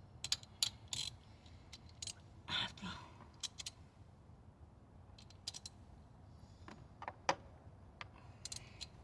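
Sporadic small clicks and metallic taps of hand tools and engine parts being handled in a car's engine bay during spark plug and ignition coil replacement.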